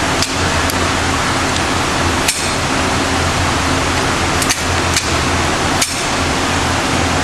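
Gunshots at a shooting range: about seven sharp cracks at uneven intervals, two of them close together about four and a half seconds in, over a steady low hum.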